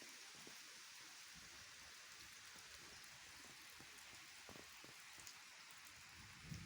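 Steady, faint rain hiss with scattered drops pattering, and a brief low knock near the end.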